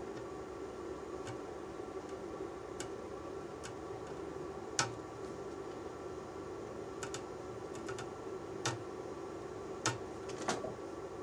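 Irregular light clicks and taps of soldering tools against a circuit board and connector pins, over a steady hum. The clicks come about every second, the louder ones about halfway and near the end.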